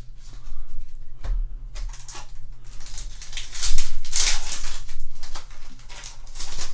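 Foil wrapper of a Yu-Gi-Oh booster pack crinkling and tearing as it is ripped open by hand. Cards click and flick against each other at the start, and the loudest crackling comes in the middle and again near the end.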